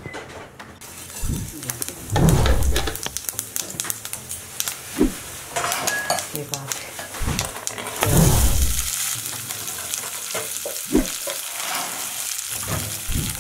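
Cumin seeds sizzling in hot oil in a kadhai, with a steady frying hiss. About eight seconds in, the sizzle grows louder as chopped onions go into the oil. A few low knocks of utensils on the pan are heard.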